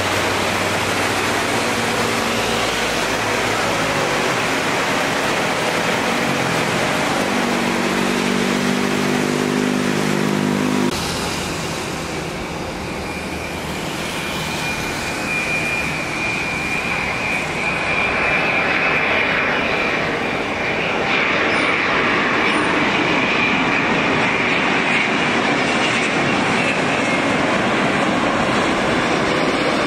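Jet engine noise from a Garuda Airbus A330-900neo's Rolls-Royce Trent 7000 engines at takeoff power in rain, a steady broad rush with a low hum, cutting off abruptly about eleven seconds in. Then a second A330-900neo on final approach to land, its engines giving a steady high whine over the rushing noise.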